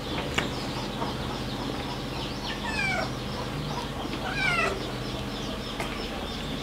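A cat meowing twice, each call falling in pitch, over a steady low hum.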